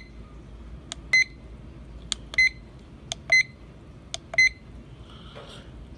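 Buttons on a wood-look LED digital alarm clock pressed four times, about one a second. Each press gives a small click, then a short high beep from the clock acknowledging the press while its settings are stepped through.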